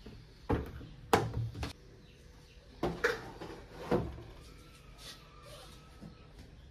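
Short plastic knocks and clicks at a top-loading washing machine as the detergent bottle is handled, the dispenser is shut and the lid is moved: about six sharp clicks in the first four seconds, then quiet room tone.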